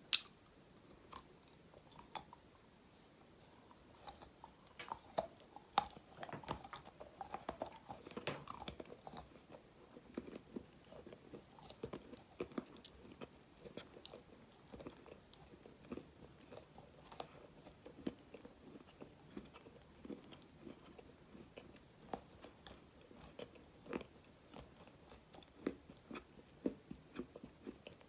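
Dry black clay being bitten and chewed close to the microphone: sharp, crisp crunches, a few scattered at first, coming thickest a few seconds in, then settling into steady chewing crunches.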